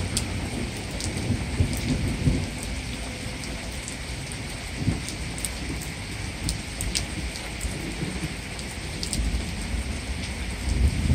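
Steady rain falling on a street, lawns and trees, with sharp scattered drips close by and a low rumble underneath.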